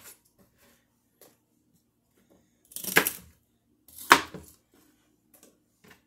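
Kitchen knife chopping through celery stalks onto a cutting board: two sharp cuts about a second apart near the middle, each with a dull knock from the board, with a few faint ticks between them.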